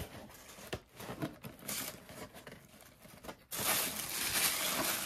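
Light clicks and scrapes of cardboard box flaps being handled, then, about three and a half seconds in, a steady crinkling rustle of white packing paper being pulled out of the box.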